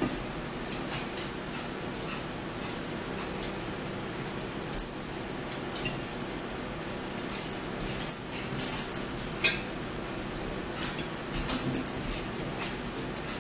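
Eating at a table: scattered sharp clicks of metal forks on plates, with chewing and mouth sounds, over a steady low hum. The clicks come thickest near the end.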